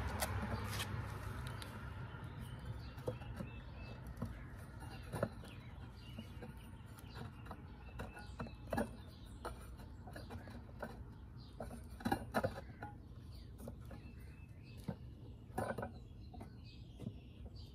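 Scattered light knocks and clicks of wrought iron balusters and a wooden rail being pressed and worked together, a few louder knocks among them, with faint bird chirps behind.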